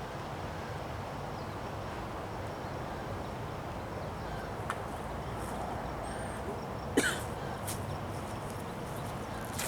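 Steady wind noise during a windstorm, with a click about halfway through and a short sharp sound about seven seconds in.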